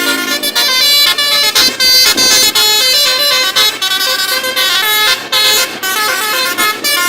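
Bus 'telolet' horn, a set of multi-tone horns playing a quick melody: loud chords of notes that step up and down every fraction of a second, with short breaks between phrases.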